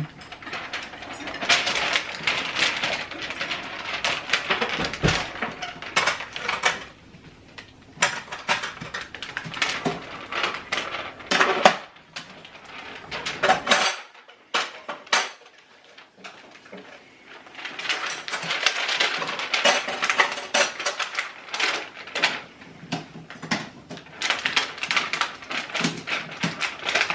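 Crinkling and crackling of thin plastic: vinyl window clings being peeled from their backing sheet and handled. It comes in three stretches with short pauses between.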